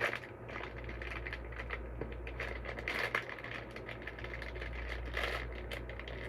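Handling noise from squishy toys being picked up and turned over by hand: light scrapes, rustles and small clicks, a little louder about halfway through and again near the end.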